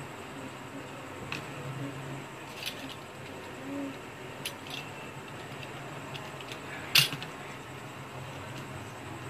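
Metal fork tines pressing the edges of a samosa pastry and tapping on a foil-lined surface: a few light clicks and taps, with one sharper click near the end, over a steady low hum.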